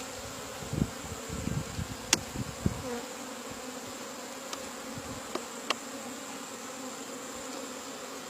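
A bee colony buzzing steadily in an open Kenyan top bar beehive, with a few low bumps in the first few seconds and several sharp clicks later.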